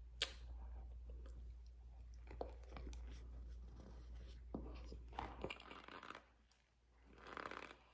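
Close-up mouth sounds of biting into and chewing a spoonful of crunchy white food: a sharp click just after the start, then scattered crackling that grows into denser crunching about five seconds in and again near the end.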